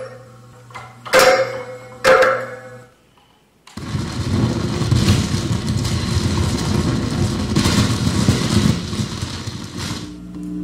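Improvised noise played on an amplified hard-drive instrument: two sharp strikes that ring briefly over a low hum, a short pause, then several seconds of loud, dense, rough buzzing noise that cuts off abruptly near the end, giving way to a steady droning tone.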